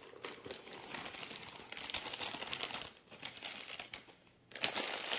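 A paper bag of powdered sugar crinkling and rustling as the whole two-pound bag is emptied into a stand mixer bowl in one go. The rustling drops away briefly near the end, then comes back louder.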